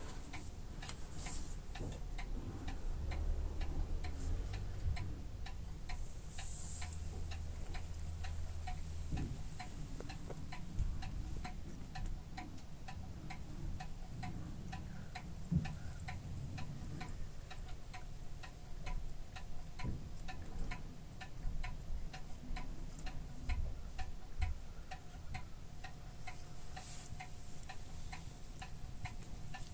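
A ginger Munchkin tabby cat licking its fur, the tongue making a regular run of soft clicking licks, about three to four a second.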